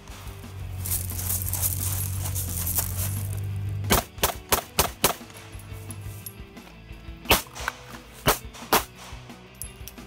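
Handgun shots: a quick string of about five about four seconds in, then several more spaced shots near the end.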